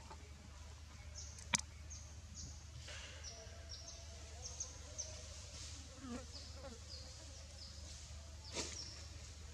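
Insects chirping in repeated short, high calls over a faint steady background, with a single sharp click about a second and a half in and a softer one near the end.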